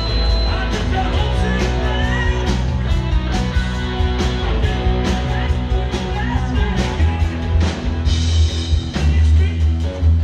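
Live rock band playing amplified through a PA, with guitars, bass and drums keeping a steady beat. The bass grows heavier about seven seconds in.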